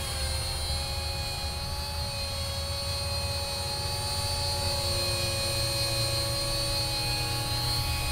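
Matrix 250R electric flybarless RC helicopter in flight: a steady motor and rotor whine whose pitch wavers slightly as it manoeuvres, over a steady low rumble.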